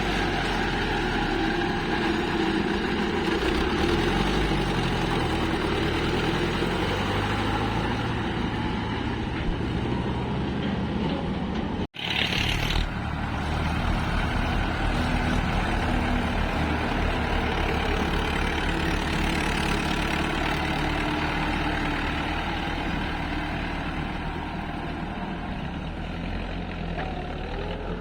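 Heavy diesel engines of an excavator and tractor running steadily while the excavator works. About halfway through the sound cuts out abruptly, then resumes with a short hiss.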